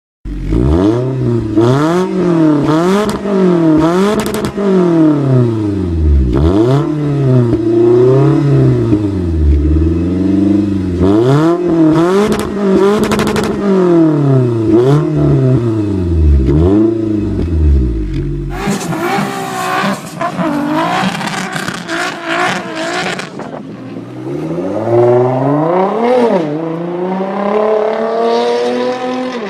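Scion tC's four-cylinder engine revved through its exhaust in quick blips, rising and falling about once a second. Near the end it climbs in one long pull to high revs before dropping back.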